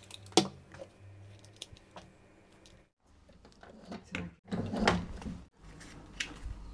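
Light clicks and knocks from handling a 12 V drill battery and its charger: a sharp click just after the start, a few small ticks, then a cluster of knocks about four to five seconds in.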